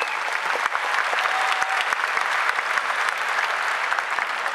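Large audience applauding, many hands clapping at a steady level.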